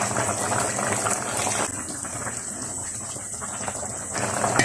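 Beef caldereta sauce boiling in a wide frying pan, a dense crackling bubbling that eases a little under two seconds in.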